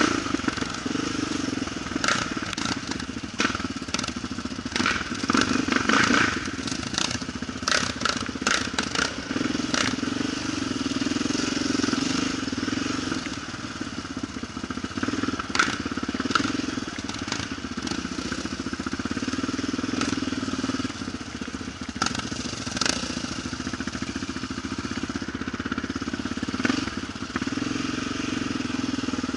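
Quad (ATV) engine running steadily while riding off-road, with clusters of sharp clicks and knocks, thickest in the first ten seconds.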